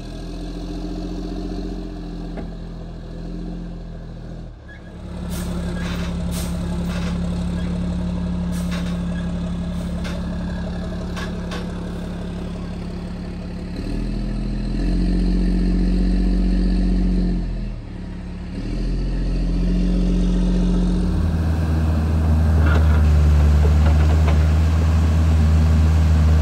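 Heavy diesel engines running steadily: the flatbed tank-delivery truck with its boom, then a mini excavator digging. Sharp metallic clanks come in a run in the first half, and the engine sound is deepest and loudest near the end.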